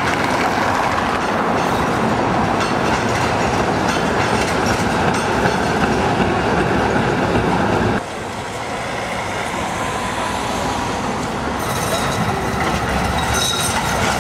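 Trams running on street track, a steady rattle and rumble of steel wheels on the rails. The sound breaks off about eight seconds in, and a second tram then grows louder as it approaches, with a faint high wheel squeal near the end.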